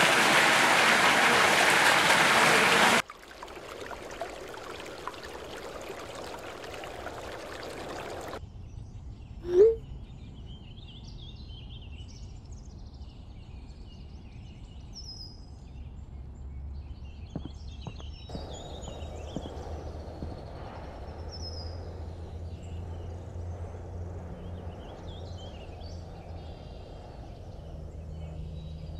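Water pouring over a concrete weir, loud and even, cutting off about three seconds in. Then outdoor ambience: a low steady hum with birds chirping now and then, and one short rising tone about ten seconds in.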